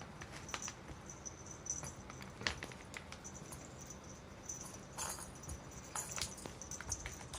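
A kitten playing with a toy: scattered light taps, clicks and rattles, a little louder about two and a half and five seconds in.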